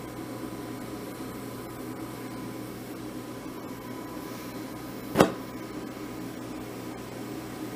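Steady hum and hiss from the lit glassworking bench torch and its shop setup, with one sharp pop about five seconds in as a hand-held torch is lit.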